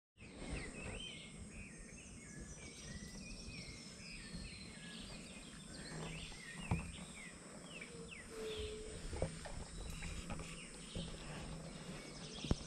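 Several birds calling and chirping, short whistled notes overlapping one another over a low outdoor background, with a few sharp knocks in between.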